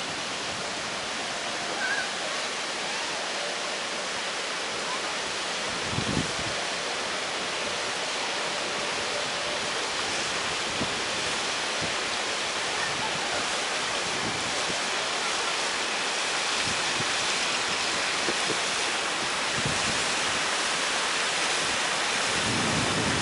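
Steady rushing of wind on an open chairlift ride, with a few brief low gusts buffeting the microphone.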